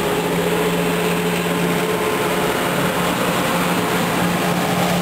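Passenger coaches of an express train rolling past: steady wheel-on-rail running noise with a low hum under it.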